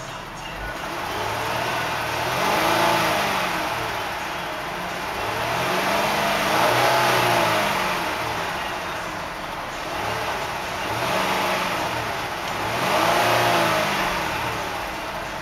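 2009 Dodge Journey's 3.5-litre V6 revved four times in park, each rev rising to about 3,500 rpm and falling back toward idle, heard from inside the cabin.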